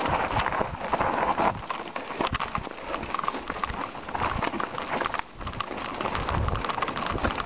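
Mountain bike descending a rocky, loose trail: tyres crunching and skittering over stones while the bike rattles with a constant clatter of small knocks, easing briefly about five seconds in.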